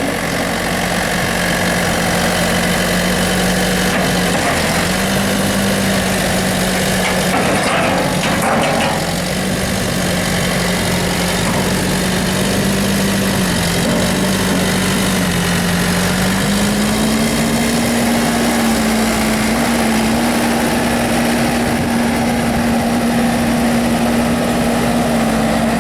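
New Holland LB75.B backhoe's diesel engine running steadily, its pitch stepping up slightly about five seconds in and again about halfway through.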